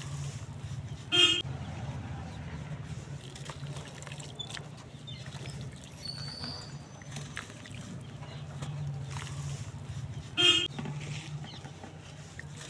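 Two short horn toots, about nine seconds apart, over a steady low hum.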